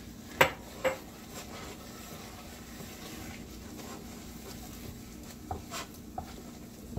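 Wooden spoon stirring thick genfo of roasted barley flour (besso) in a saucepan: two sharp knocks against the pot near the start, then soft scraping strokes now and then, over a steady low hum.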